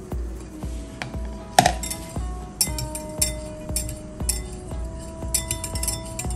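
A metal wire whisk clinking against a glass bowl as it stirs a thin liquid batter, in a run of irregular light clicks with one sharper knock about a second and a half in. Background music with steady held notes plays throughout.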